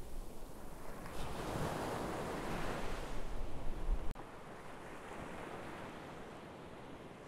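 Ocean surf washing onto a sandy beach in swelling surges, with wind rumbling on the microphone. About four seconds in the sound drops abruptly to a quieter, steady wash.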